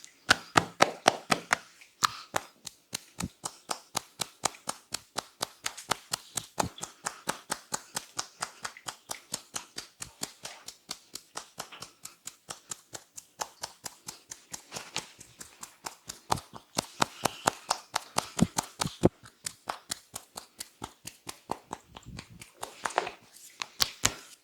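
Barber's hands striking a head in quick, rhythmic percussive strokes of an Indian head massage, a steady run of sharp slaps at about four a second.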